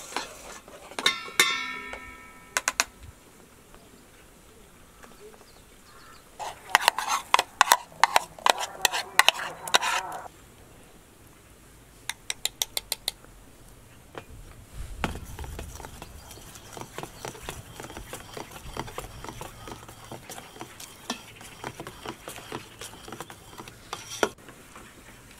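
Metal spoon beating and stirring eggs and yogurt in a stainless steel bowl: a fast flurry of clinks against the bowl, then a short run of separate taps. After that comes a steadier, softer run of mixing noise with small clicks as the batter is worked.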